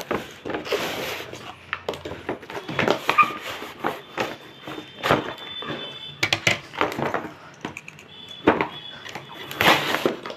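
Cardboard toy box and its packaging being opened and handled: irregular rustling, scraping and knocks, with several sharper clicks and bumps.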